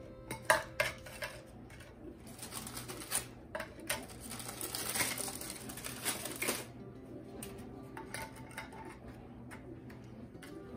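Graham crackers being set down and nudged into a glass baking dish: light clicks and taps, the sharpest about half a second in, with a few seconds of rustling from the cracker packet around the middle.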